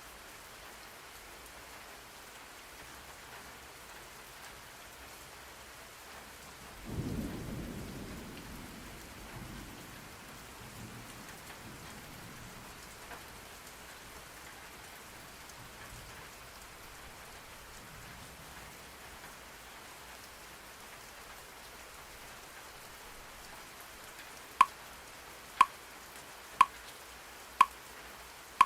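Steady rain with a low roll of thunder about seven seconds in that fades away. Near the end come four short electronic timer beeps, one a second, leading into the alarm.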